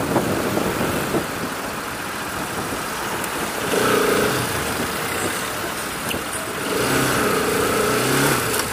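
Bajaj Pulsar RS200's single-cylinder engine under way, heard from a helmet camera, with wind rushing over the microphone; the engine note comes up louder twice, about four seconds in and again near seven seconds, as the bike pulls.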